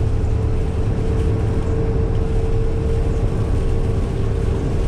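Steady engine and road drone heard from inside a tow truck's cab at highway speed on a rain-soaked road, with a constant low rumble and a steady hum over it.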